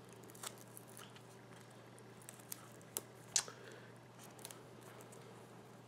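Faint handling sounds of painter's tape being wrapped around a braided wiring harness lead: a few soft clicks and crinkles over a steady low hum.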